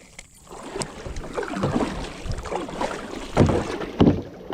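Kayak sounds: water sloshing and rustling around the hull, with two dull knocks about three and a half and four seconds in.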